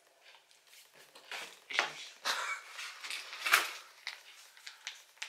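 Food products and packaging being handled in a cardboard box: irregular rustles and light knocks as items are moved and a packet is pulled out.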